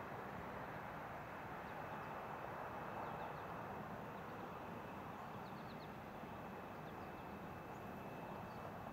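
Quiet steady outdoor harbor ambience: an even, faint background noise, with a few faint quick bird chirps in small groups a few seconds in and again past halfway.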